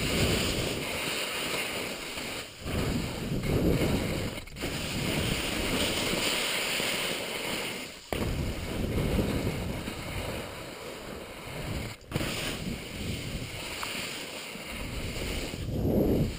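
Wind rushing over a body-mounted action camera's microphone and skis hissing through snow on a downhill run. The noise swells and fades and drops out very briefly four times.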